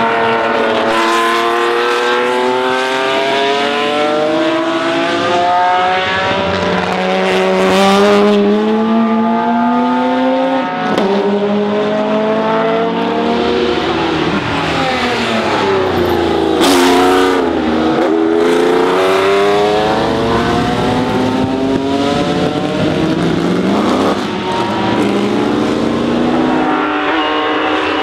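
Historic sports-prototype racing cars at full throttle, one after another. The engine notes climb in pitch and break at gear changes, and near the middle the pitch drops sharply as cars pass close by.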